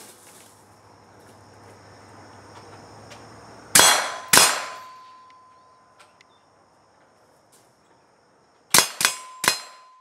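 Suppressed rifle shots from an LWRC 10.5-inch short-barrelled rifle fitted with an AAC 762-SDN-6 suppressor. Two shots come about half a second apart, then after a pause of about four seconds three quicker shots. Each group is followed by a steady ringing tone.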